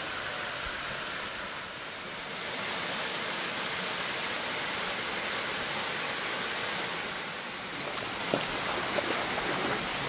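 Waterfall pouring in thin streams down a mossy rock face into a pool, a steady rush of falling water. A couple of faint knocks come near the end.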